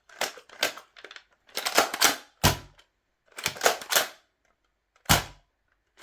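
Nerf Mega Cyclone Shock blaster being primed and fired: bursts of plastic clacks as the blaster is cocked and the cylinder turns, then a sharp, hard pop of a dart shot, twice, about two and a half seconds apart.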